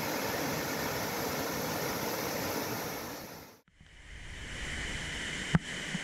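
Waterfall pouring into a rock pool: a steady rush of falling water that fades out about three and a half seconds in. After it a quieter, lower wash of water and a single sharp click near the end.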